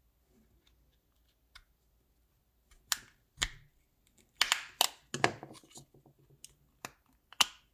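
Sharp plastic clicks and snaps as a flathead screwdriver pries apart a Hyundai Kona key fob's plastic shell and its clips let go. There are about eight of them in an uneven cluster, starting about three seconds in after a quiet start.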